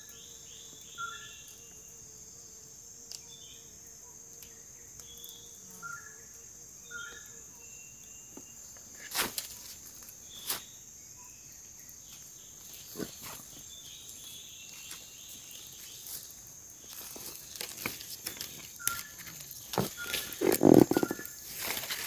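Forest ambience: a steady high insect hum with short bird calls repeating through the first half. A few sharp knocks in the middle, then splashing and rustling, loudest near the end, as a wet fishing net is worked in a stream.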